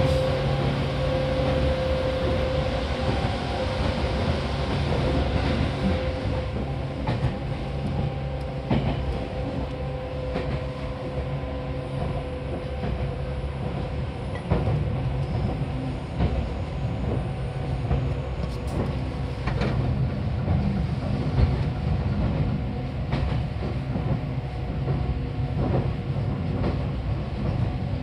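Seibu 4000 series electric train running, heard from inside the car: a steady low rumble and hum from the motors and wheels, with occasional clicks and knocks from the wheels on the track. A higher tone fades out over the first few seconds.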